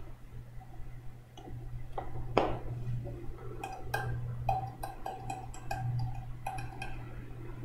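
Irregular light clicks of a computer keyboard and mouse, sparse at first and coming more often in the second half, over a steady low electrical hum.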